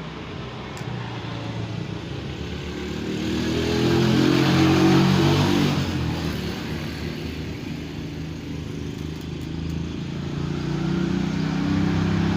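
A motor vehicle's engine passing by, swelling to its loudest about four to five seconds in and then fading. A second vehicle approaches near the end.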